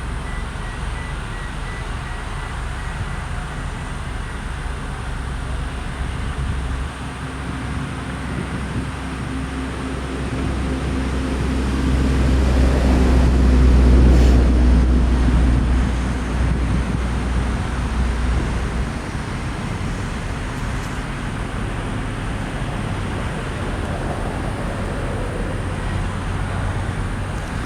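Steady vehicle engine rumble with road noise. It swells to its loudest about halfway through, with a steady hum, then fades back.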